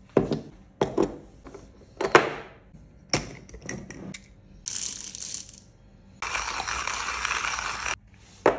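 Sharp knocks as a hand coffee grinder and a small Bialetti moka pot are set down on a wooden table, then a short rattling rush of coffee beans poured into the grinder's hopper. A longer, steady rushing sound follows, and another knock comes near the end.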